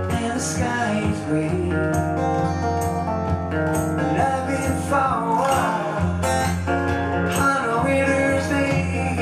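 A man singing live while strumming an acoustic guitar.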